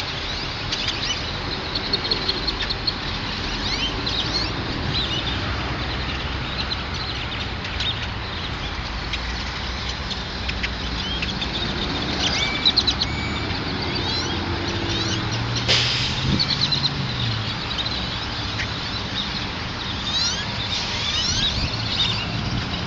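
A flock of small birds chirping, many short calls overlapping, over a steady background noise; a low hum comes in for a few seconds about two-thirds of the way through.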